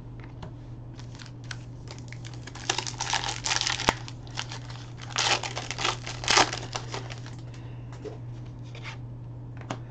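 Foil trading-card pack wrapper being torn open and crinkled by hand. It comes in two main bursts about three and five seconds in, with lighter rustles and clicks between, over a steady low hum.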